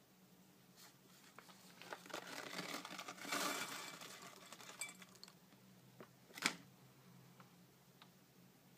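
Plastic snack pouch crinkling as its spicy strips and crumbs are shaken out into a ceramic bowl, with a few light ticks of pieces landing, then a single sharp click about six and a half seconds in.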